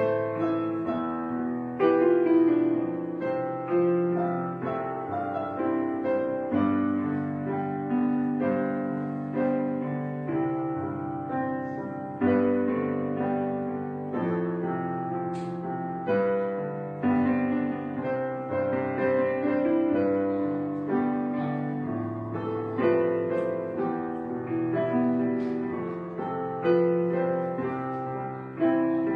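Background instrumental music led by piano, with notes that ring and fade.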